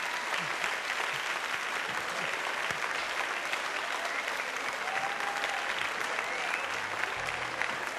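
Studio audience applauding steadily: dense clapping at an even level.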